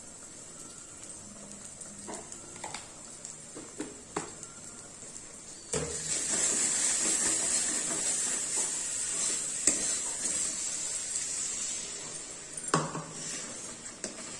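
A steel spatula scrapes and clinks against an iron kadai while fish in mustard paste fries. About six seconds in, a steady sizzle comes up and carries on for several seconds. A sharp clank near the end is followed by a quieter stretch.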